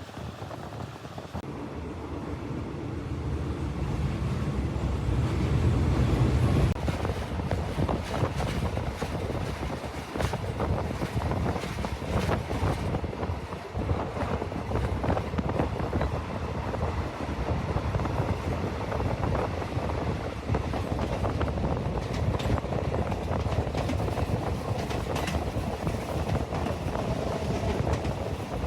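A train passing: the diesel locomotive's engine rumble builds to a peak about six seconds in, then the wheels clatter steadily over the rail joints as the carriages roll by.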